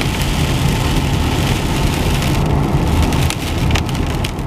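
Road noise heard inside a moving car: a steady low rumble of tyres on a bumpy forest road, with a rushing hiss over it for the first two and a half seconds or so, and scattered light clicks and rattles after that.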